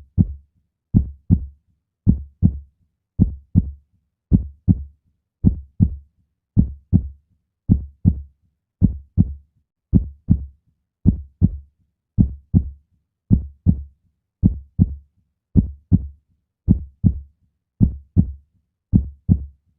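Heartbeat sound effect: a steady lub-dub, each beat two short low thumps in quick succession, at a little under one beat a second (about 55 a minute).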